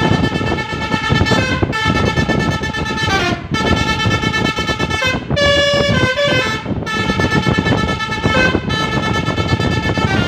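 A bus's Basuri telolet horn playing a tune: held multi-tone notes that step up and down in pitch, changing every second or two, with short breaks between phrases. Steady road and engine rumble runs underneath.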